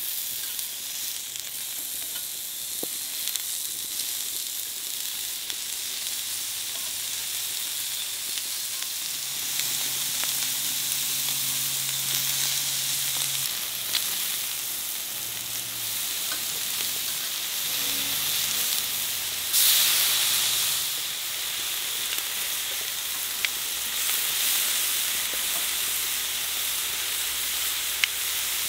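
Pork belly strips sizzling on the hot ridged plate of a Snow Peak Grill Burner: a steady high hiss of frying fat with scattered sharp pops and spits. The sizzle swells briefly about two-thirds of the way through.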